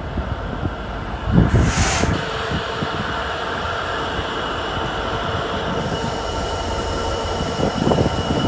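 Class 66 diesel locomotive drawing a container freight train slowly into the platform. The engine rumbles low, and a steady high-pitched squeal from the wheels and brakes sets in about two seconds in, after a brief hiss.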